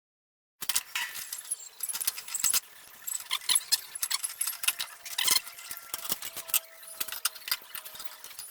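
Metal being handled in a workshop: irregular clinks, taps and jangling rattles, starting just under a second in.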